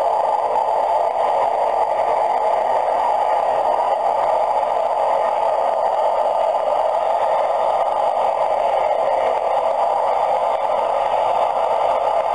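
Cessna 208 Grand Caravan's PT6A turboprop running steadily as the aircraft taxis, heard as an even, muffled rushing drone through a low-quality camcorder microphone.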